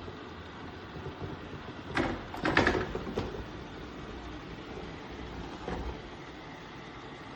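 Shark PowerDetect robot vacuum running with a steady motor hum. A few clattering knocks come about two to three seconds in, and a softer one near six seconds.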